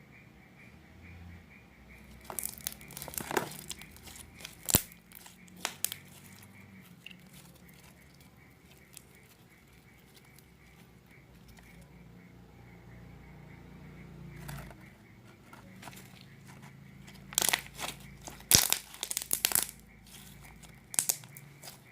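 Homemade avalanche slime being mixed and squeezed by hand, giving crackling, popping clicks. They come in short bursts a few seconds in, then a quieter stretch, then a longer, louder run near the end.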